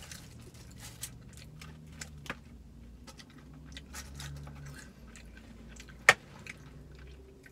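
Close-up chewing of a crunchy fried chicken sandwich with the mouth closed: soft crunches and small wet clicks, with one sharp click about six seconds in. A steady low hum runs underneath.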